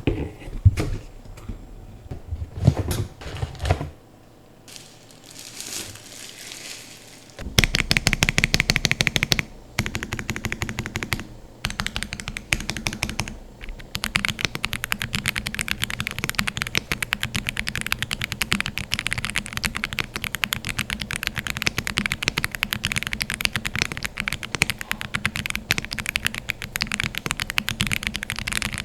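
Aula F75 mechanical keyboard being typed on, rapid continuous keystrokes. A few scattered knocks and a quieter stretch come first; the fast typing starts about seven seconds in, breaks off briefly a few times, then runs on steadily.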